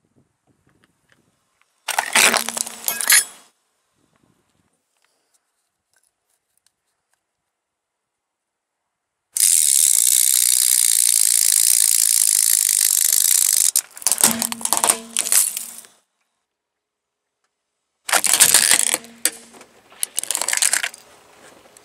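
Car tyre rolling over and crushing small objects one after another (a metal spoon, an orange plastic toy, a toy airplane), giving short bursts of crunching, cracking and snapping about two seconds in, midway, and near the end, with dead silence between them. A steady hiss runs for about four seconds just before the middle burst.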